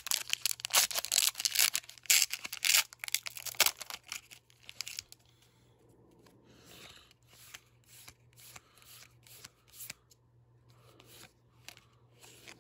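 A foil Pokémon booster-pack wrapper crinkles and tears open during the first four seconds or so. Then comes a quieter run of soft swishes and light clicks as the trading cards are slid past one another one at a time.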